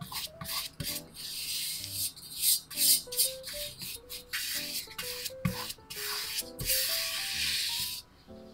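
Bristle pastry brush swishing back and forth over the inside of a metal round cake pan, greasing it. The repeated brushing strokes stop just before the end, over soft background music.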